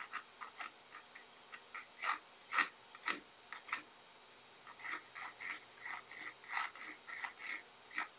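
Pencil scratching on paper in short, irregular drawing strokes, with a quicker run of strokes in the second half.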